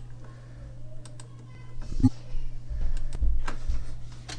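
Computer keyboard typing, a scattering of separate keystroke clicks, over a steady low hum.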